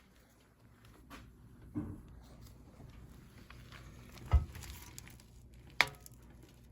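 Handling noises in a small room: low rustling with a soft knock, a heavy thump about four seconds in, and a sharp click a second and a half later.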